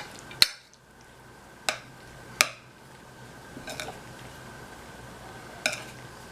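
Utensils knocking and clinking against the food dishes as the food is mixed: about six sharp knocks spread a second or more apart, the loudest about half a second in and again near two and a half seconds.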